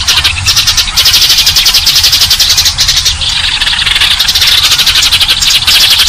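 Eurasian tree sparrows chirping in a rapid, continuous stream, about ten sharp chirps a second overlapping into a loud chatter. This is a lure recording played to attract sparrows.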